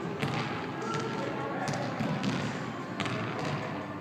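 A basketball bouncing on a hardwood gym floor in a large, echoing gym: a few separate, unevenly spaced bounces as it is dribbled.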